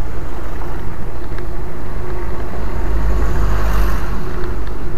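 Wind rushing over the microphone of a camera riding along on a moving bicycle, with steady road and traffic noise; the rumble swells about three seconds in.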